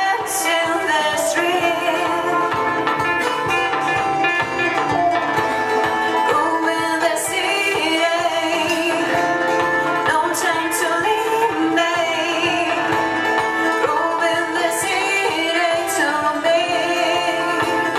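Band playing live with a singer and plucked string instruments such as guitar.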